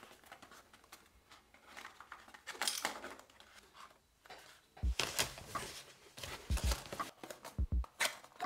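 Cardboard and plastic product packaging handled by hand: a Raspberry Pi box and a card blister pack rustle and scrape, and the box flap is pulled open. Several dull low thumps come in the second half, mostly in pairs.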